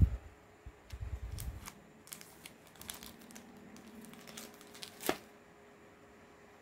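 Plastic comic book bags crinkling and rustling as bagged comics are handled and swapped, with irregular crackles and a sharper crinkle about five seconds in. Low thumps of handling at the start and about a second in.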